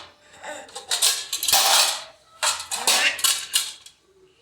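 A toddler banging and clattering metal pots and pans, in several bursts of clangs and scrapes that stop just before the end.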